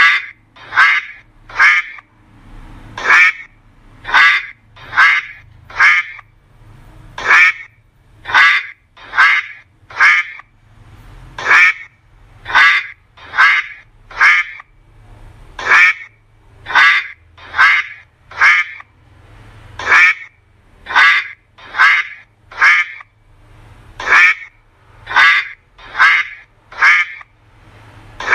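A duck quacking over and over, loud short quacks in runs of three or four about a second apart, with a brief pause between runs.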